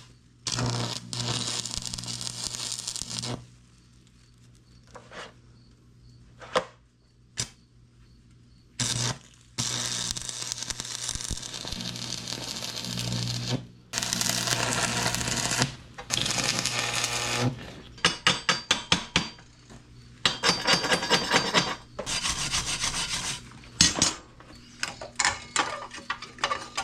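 Electric welder joining steel stakes: several crackling weld runs of a few seconds each, then a string of short rapid bursts in the second half, with a low electrical hum under each run.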